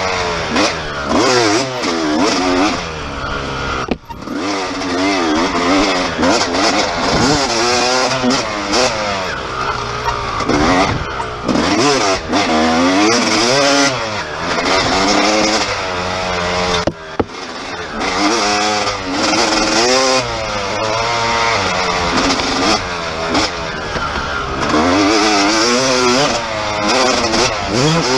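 Dirt bike engine revving up and down as it is ridden hard, its pitch rising and falling every second or two through throttle and gear changes. The engine drops off briefly near four seconds.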